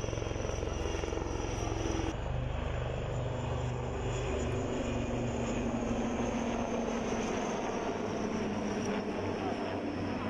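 Aircraft engine noise from an aircraft in flight, steady throughout, with an abrupt change in tone about two seconds in.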